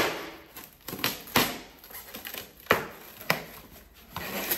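A cardboard shipping box being cut and pulled open: crinkling packaging broken by several sharp snaps and cracks.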